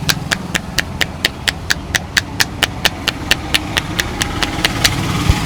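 Barber's scissors snipping in a steady rhythm, about four crisp metallic clicks a second, the clicks fading out near the end.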